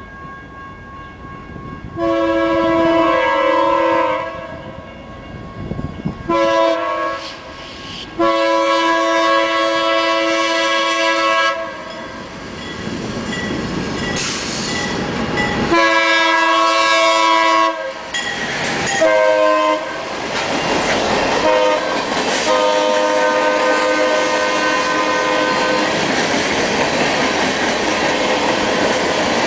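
Air horn of a BNSF GE Dash 8-40BW freight locomotive sounding a chord of several notes in a series of long blasts with one short one, as the train approaches. The locomotives and boxcars then roll past, wheels clattering over the rail joints, growing louder toward the end.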